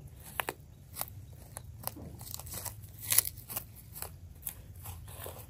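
Weeds and grass pulled by hand from garden soil: irregular short snaps and crackles as roots tear loose, the loudest a little after three seconds in.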